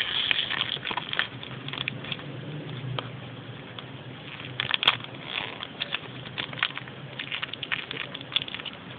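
Packaging crinkling and rustling in hands, a dense run of irregular small crackles and clicks.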